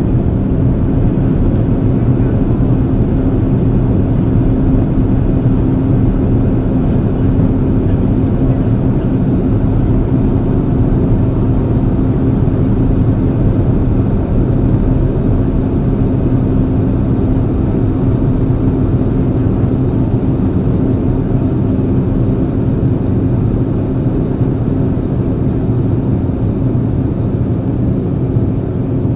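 Steady drone of an Airbus A330-300 airliner in flight, jet engines and airflow heard inside the passenger cabin, with a steady low hum running through it.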